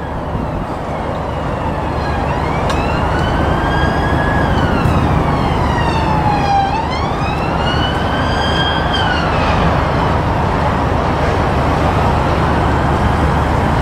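An emergency vehicle's siren wailing, its pitch gliding slowly up and down twice before fading, over a steady low rumble.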